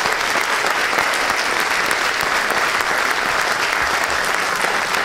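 A large audience applauding, a steady wash of many hands clapping.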